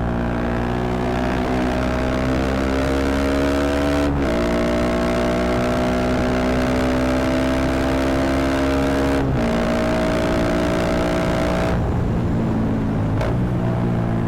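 Motorcycle engine pulling through the gears while riding: the note climbs steadily, then drops at each gear change, about four seconds in, about nine seconds in and once more near the end.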